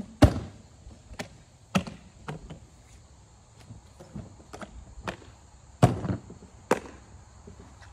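A run of about nine irregular, sharp knocks and clicks, unevenly spaced, the loudest about a quarter-second in and just before six seconds in.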